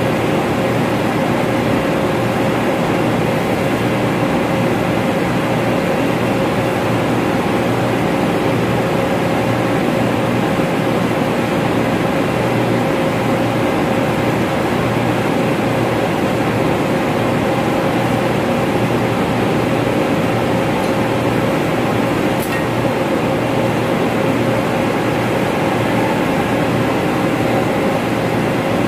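Loud, steady drone of running air-handling machinery, with a constant humming tone over broad fan noise.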